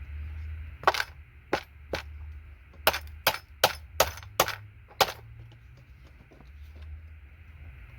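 Sharp snaps, about nine in four seconds, as parts are removed from a scrap circuit board.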